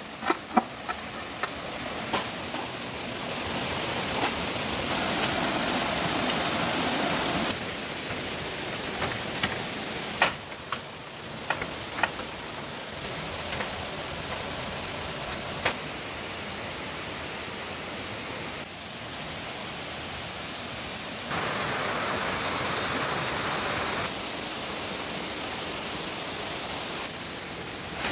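Outdoor ambience: a steady hiss with insects buzzing, stepping abruptly louder and quieter every few seconds, with scattered sharp knocks and taps, most of them in the first half.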